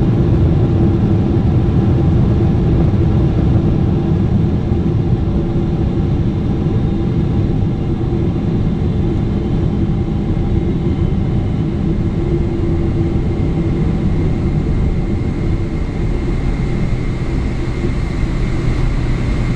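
Cabin noise of a Boeing 777-300ER's landing rollout: a loud, steady rumble from the GE90 engines and the wheels on the runway that slowly dies away as the aircraft slows. A faint high whine comes in during the second half.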